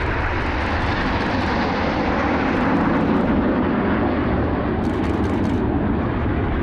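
Jet roar from the Frecce Tricolori's formation of Aermacchi MB-339 jet trainers flying past, swelling to its loudest around the middle and easing off. Short bursts of rapid camera shutter clicks sound over it, three times.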